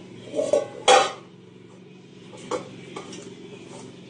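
Stainless steel bowls and pot clanking as a toddler handles them: a few sharp metallic clanks, the loudest about a second in, then lighter knocks.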